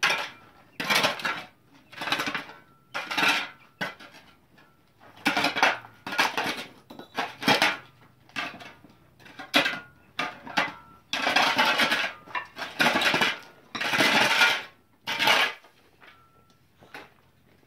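A metal shovel scraping and scooping over stony, gravelly ground in a run of short strokes, about one a second, with a few longer drags near the middle; the scraping stops about two seconds before the end.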